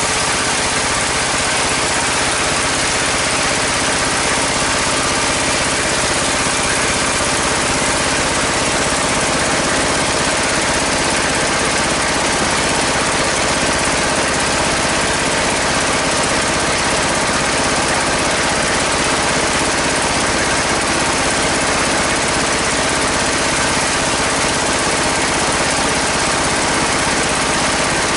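Engine-driven sawmill band saw running steadily, the engine and the saw blade making one continuous loud drone.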